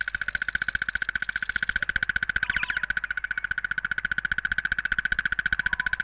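Crested barbet giving its long, dry, rattling trill: a continuous fast run of clicks on one steady pitch, held without a break.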